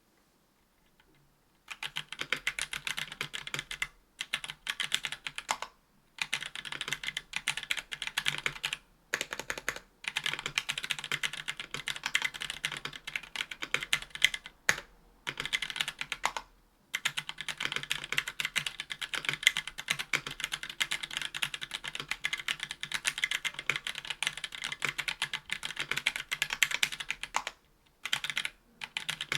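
Fast typing on a 60% aluminum mechanical keyboard with Hako Royal Clears tactile switches, an aluminum plate and GMK keycaps: steady runs of keystroke clicks broken by brief pauses. It starts after about a second and a half of near silence.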